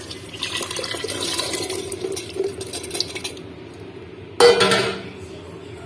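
Boiled kidney beans with their cooking water poured from a bowl into thick masala gravy in a steel pot, a wet splashing pour lasting about three seconds. About four and a half seconds in, a short loud clatter of a steel spoon against the pot.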